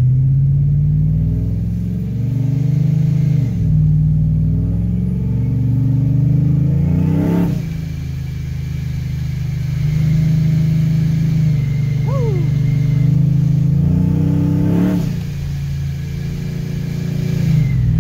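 Supercharged Ram pickup's Hemi V8 heard from inside the cab, pulling up through the gears. The engine note climbs in pitch and drops back at each upshift, three times. A faint steady high whine rides over it in the second half.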